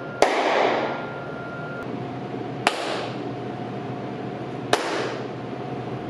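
Three single hand claps in a restaurant dining room with hard surfaces, a clap test of the room's echo. The first clap rings on with a long echo tail, before acoustic treatment. The later two die away noticeably faster, after ceiling acoustic panels have been installed.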